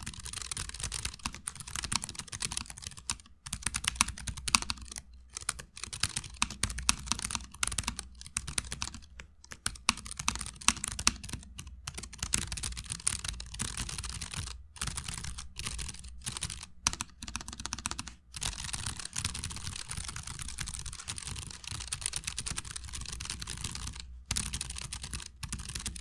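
Fast typing on a Keychron K7 low-profile mechanical keyboard with Brown optical switches, picked up close to the keys: a dense run of key clicks and clacks, broken by a few short pauses.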